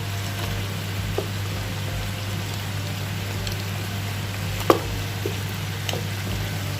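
Marinated chicken pieces sizzling steadily as they fry uncovered in a pan on a low flame, crisping once their released juices have cooked off. A few light clicks and one sharper tap about two-thirds of the way in sound over a steady low hum.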